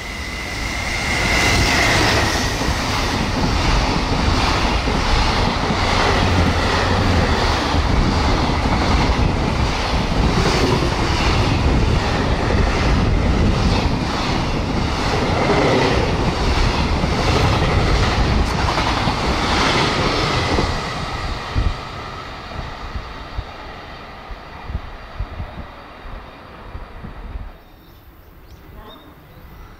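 Long container freight train behind an EF210 electric locomotive passing at about 97 km/h, its wagon wheels clattering over the track in a steady, fast rhythm. The clatter fades out about two-thirds of the way in, and the sound cuts off sharply near the end.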